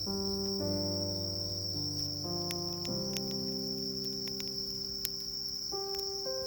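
Crickets chirring steadily in one constant high tone over soft background music of sustained chords. From about two seconds in there are scattered sharp clicks.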